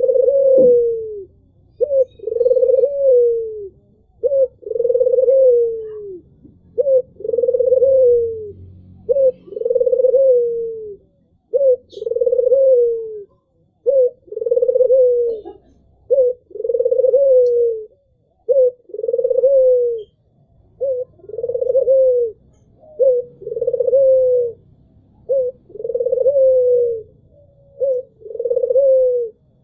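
Albino puter dove, a white domestic Barbary dove, cooing over and over: each call a short note followed by a longer falling coo, repeated every second and a half to two seconds.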